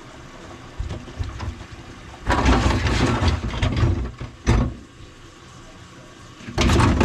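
A plumber's motorised drain-cleaning machine running in two loud bursts, with a sharp click between them, as it works a grease-clogged kitchen sink drain line.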